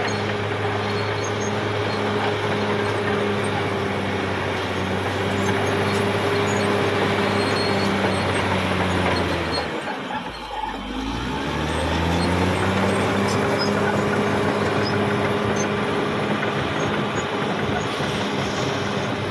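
Caterpillar D6R XL bulldozer's diesel engine running steadily. About halfway through, its revs drop sharply and then climb back up.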